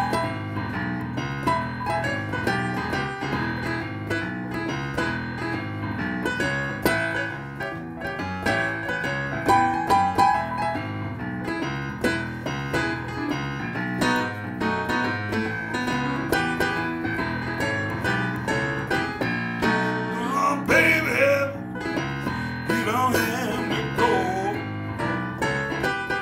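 Keyboard playing a straightforward blues in the key of E, with a steady repeating rhythm in the bass.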